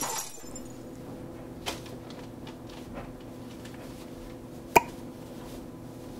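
Cotton hoodie rustling softly as it is laid out and smoothed on a heat press platen, over a steady electrical hum, with a small click after a second or so and one sharp click a little before five seconds in.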